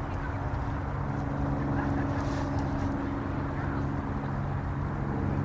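A steady low hum with several level tones, over a constant rushing noise.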